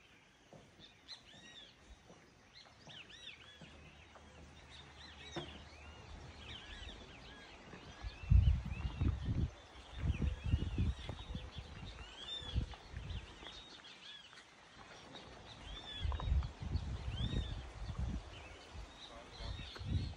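A chorus of high, short chirping calls, many overlapping and repeating, with low rumbles from wind or movement on the microphone about eight to ten seconds in and again about sixteen to eighteen seconds in.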